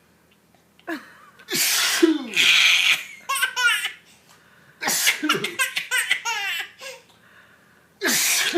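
A man's loud sneezes, each answered by a baby's belly laughs in quick rhythmic bursts. The pattern comes twice, and a third sneeze starts near the end.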